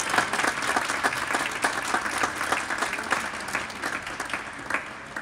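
A small crowd applauding in a gymnasium, a fast dense patter of hand claps that thins and fades out near the end.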